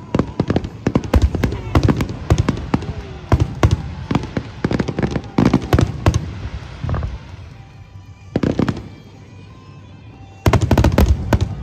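Fireworks shells bursting overhead in a fast series of sharp bangs and crackles. The bangs thin out to a brief lull about eight seconds in, then a dense volley of bangs comes near the end.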